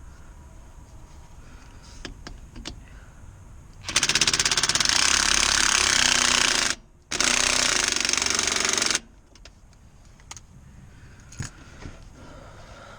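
Cordless impact driver hammering in two runs, about three seconds and then about two seconds after a short stop, with a few small handling clicks before and after.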